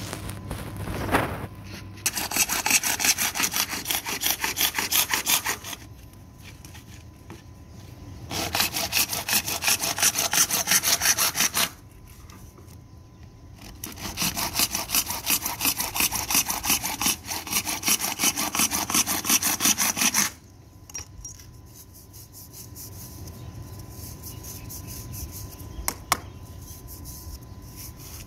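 Hacksaw blade sawing through grey PVC pipe by hand in three bouts of rapid back-and-forth strokes, with short pauses between them. A single sharp knock comes near the end.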